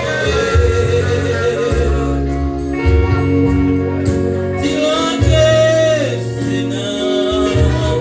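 Gospel praise-and-worship song: singing over a band, with long held bass notes that change every second or so.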